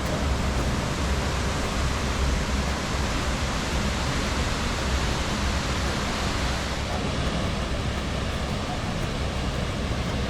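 A waterfall: a steady, loud rush of falling water, unchanging throughout.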